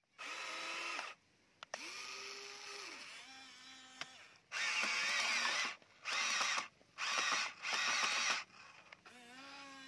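Huina remote-control excavator's small electric motors whining in short stop-start runs as the arm and bucket move, each run gliding in pitch as it starts and stops. In the middle come four louder, harsher runs, about half a second to a second each, with a few sharp clicks in between.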